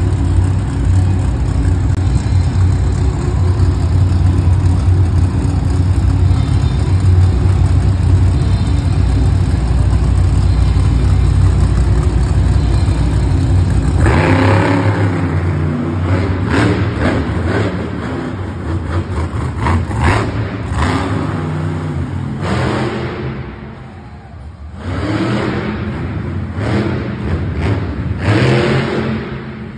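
Monster truck engine, a heavy steady low rumble for about the first half. It then revs in repeated bursts, the pitch climbing and falling with each blip of the throttle, and eases off briefly near the end before revving again.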